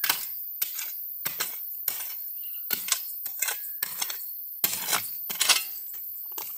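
Steel hand digging trowel stabbing and chopping into stony, gravelly soil, giving irregular sharp clinks and knocks of metal on stone, about two a second.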